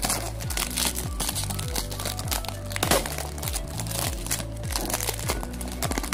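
Clear plastic shrink-wrap crinkling as it is peeled off a cardboard perfume box, over background music with a steady, repeating bass beat.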